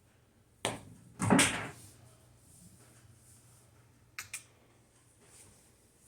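Pool cue tip striking the cue ball with a sharp click, then about half a second later a louder, longer knock of billiard balls hitting. Two quick clicks follow about three seconds later.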